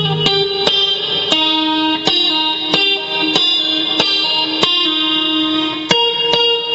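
Electric guitar played through a Boss ME-20 multi-effects pedal, picking single ringing notes one after another, about one every two-thirds of a second, in a melodic line.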